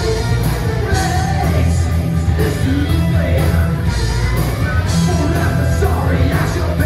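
Live rock band playing: electric guitars, bass guitar and drums, with a singer's voice over them, heard from the audience in a large hall.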